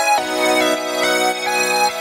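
Instrumental background music with a steady beat and a melody moving in short notes.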